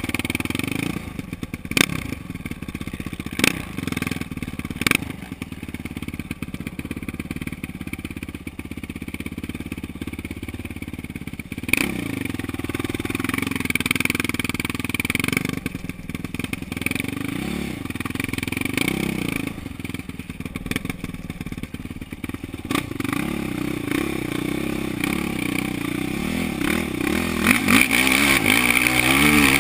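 Sport quad (ATV) engine heard from the rider's seat, idling and blipped a few times, then revving up harder and louder near the end under load as the quad climbs a steep slope of loose rock. A few sharp knocks sound in the first few seconds.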